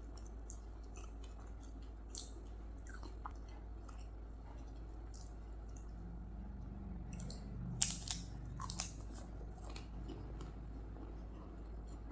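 Close-up eating sounds: wet chewing and mouth clicks, scattered and irregular, with a few louder clicks in a cluster about two-thirds of the way through, over a steady low hum.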